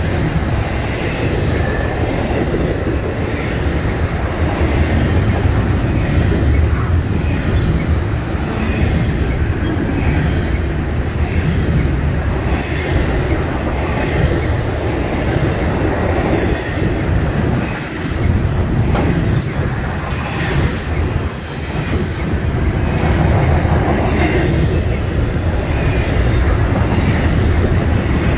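Norfolk Southern double-stack container train rolling past close by: loud, steady rumble of its well cars' steel wheels on the rails.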